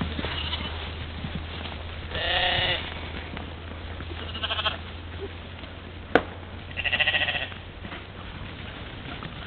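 European mouflon bleating three times: a long quavering bleat about two seconds in, a short one midway and another long quavering one near the end. A single sharp knock comes just before the last bleat, over a steady low hum.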